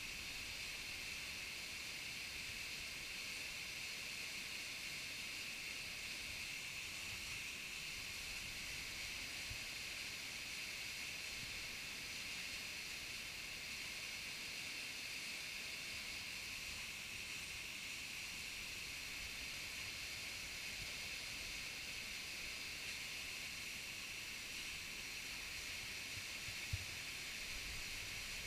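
Small waterfall pouring into a rock pool: a steady hiss of falling water, with one light knock near the end.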